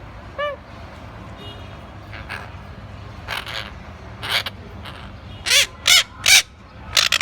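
Rose-ringed parrot giving a string of short harsh calls, the loudest three in quick succession past the middle, after one brief higher note about half a second in.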